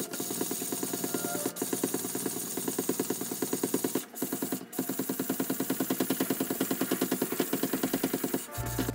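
Belt sander grinding a steel usuba kitchen knife blade, running with a fast, even pulsing that stops near the end.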